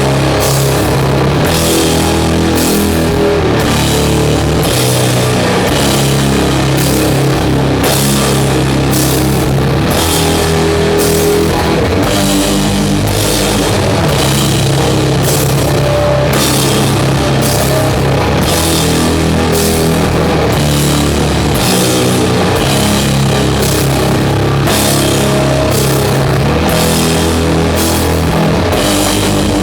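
Doom metal band playing live at full volume. Distorted guitars and bass hold long, low chords for several seconds at a time over slow, steady drum and cymbal hits.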